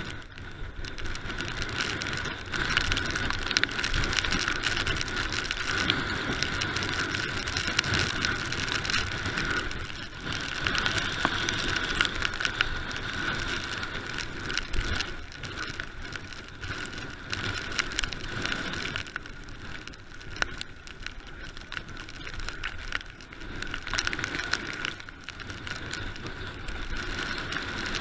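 Mountain bike ridden fast downhill over a wet, rocky dirt trail: tyres crunching and the bike and camera mount rattling and clicking over the bumps, with a steady rushing noise throughout.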